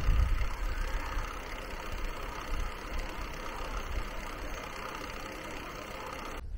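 Wind rushing over the microphone with steady road noise while riding along a paved road. There is a stronger low rumble of wind in the first half second.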